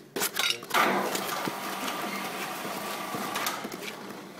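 Socketing resin, granules mixed with liquid, being stirred quickly by hand in a plastic tub: a few knocks, then a continuous scraping rasp from about a second in that eases near the end.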